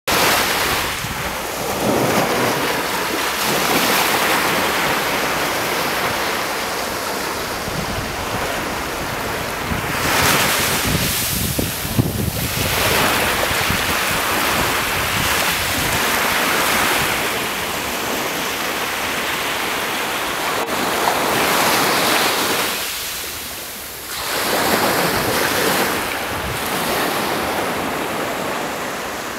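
Small surf breaking and washing up a sandy beach, swelling and ebbing, with wind buffeting the microphone.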